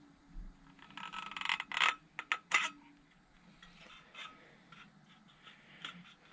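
Tin snips cutting thin sheet-metal trim: a crunching run of metal snipping with a few sharp clips about a second or two in, then faint light clinks as the cut piece is handled.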